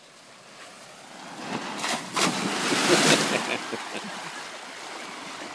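Two people skidding down a wet plastic slip-and-slide sheet and splashing into the water pool at the bottom: a rushing splash that builds about a second and a half in, is loudest around the middle, then fades.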